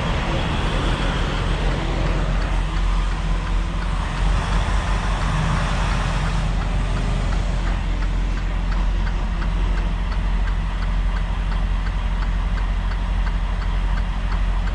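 Semi truck's diesel engine idling, heard from inside the cab, with a steady run of light ticks about three a second starting a couple of seconds in.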